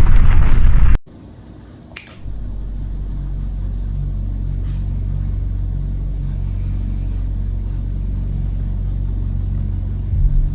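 A loud burst of sound cuts off sharply about a second in. After a single click, a steady low hum with a deep drone sets in and holds, the background noise of a doorbell camera recording.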